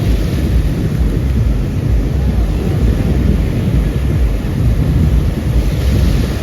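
Wind buffeting the microphone in a loud, steady low rumble, with ocean surf beneath it.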